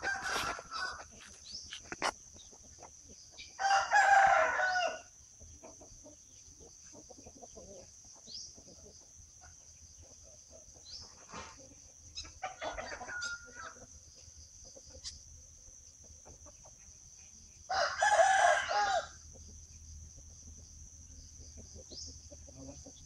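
A rooster crowing: two loud crows, each over a second long and about fourteen seconds apart, with a fainter crow between them.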